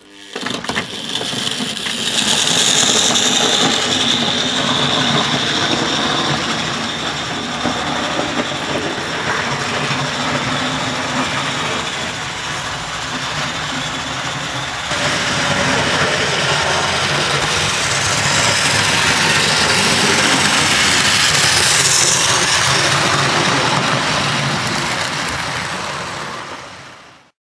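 Mainline 00-gauge model train running on the layout track: a steady whirr and rattle of the locomotive's motor and the wheels on the rails, cutting off just before the end.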